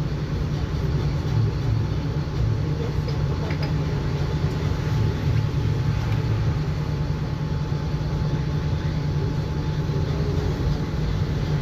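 Mercedes-Benz O-500M bus with a Voith automatic gearbox, its engine running with a steady low drone and even road and body noise.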